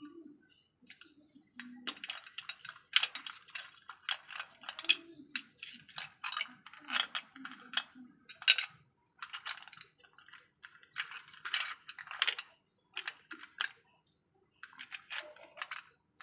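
Kitchen scissors snipping spring onions: a long run of short, crisp snips, about one or two a second, with brief pauses between runs.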